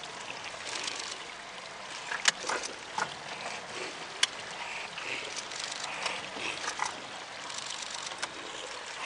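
Water sloshing and trickling, with scattered small splashes and two sharp clicks or knocks, about two and four seconds in.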